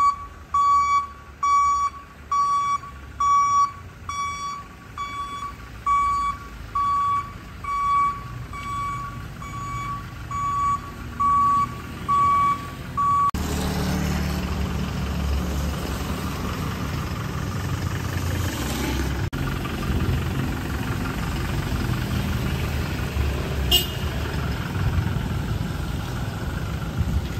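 A vehicle's reverse warning beeper sounds a steady high beep about once every 0.7 seconds, then stops abruptly about 13 seconds in. After that comes a low vehicle engine rumble with a steady hiss and a single sharp click near the end.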